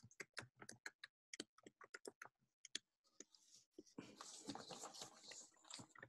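Faint computer-keyboard typing: irregular keystroke clicks, growing into a denser clatter about four seconds in.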